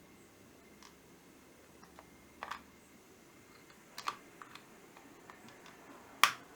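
A few scattered sharp clicks and taps with smaller ticks between them, the loudest one near the end.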